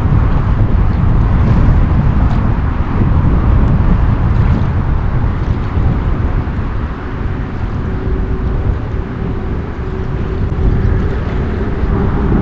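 Strong wind buffeting the microphone: a loud, continuous low rumble. A faint steady hum joins about halfway through.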